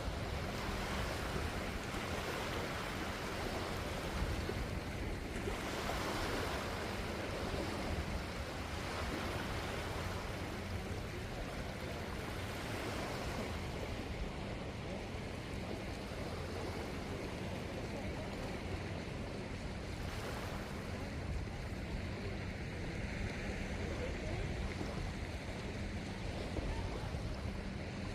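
Surf washing onto a beach in a steady rush that swells now and then, with wind buffeting the microphone.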